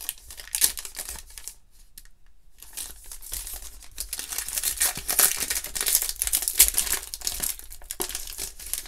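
Metallic foil trading-card pack crinkling as hands work it open. A short lull comes about two seconds in, then the crinkling gets busier and louder.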